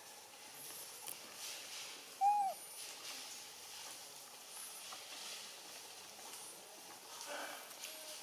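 A single short hooting animal call about two seconds in, rising then falling in pitch, over a few faint, high, short chirps.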